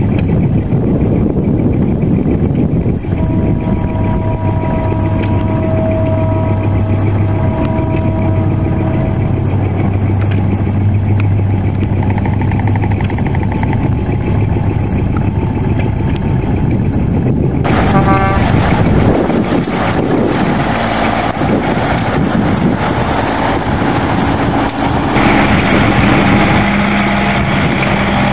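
Old trucks' engines running steadily as the trucks drive slowly past one after another. About three seconds in, a horn sounds in three long toots over several seconds. Near two-thirds of the way through there is a short, louder burst of noise.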